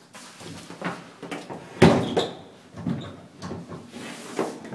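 Closet doors being handled, opened and shut, with several knocks and thuds. The loudest comes about two seconds in.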